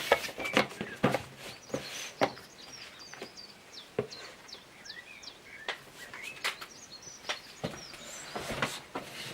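Scattered sharp clicks and knocks, with small birds chirping in short bursts of high, quick notes in the background.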